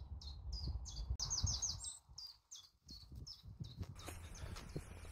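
A small songbird singing a series of short, high, down-slurred chirps, about three a second with a quicker run of notes just after a second in, stopping near the end.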